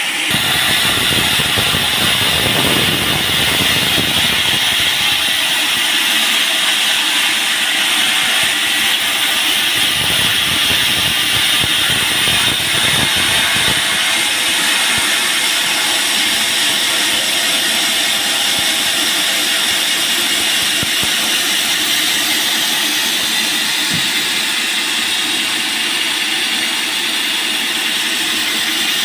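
Band sawmill running steadily, its blade sawing through a large teak log with a loud, even hiss. A deeper rumble joins in over the first few seconds and again about ten seconds in.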